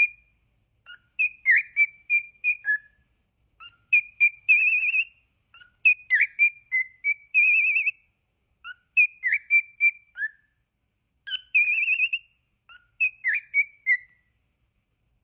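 Pet lovebird chirping and warbling: short bursts of high whistled notes, some with a rapid trill and some dropping sharply in pitch, repeated in phrases, then falling silent near the end.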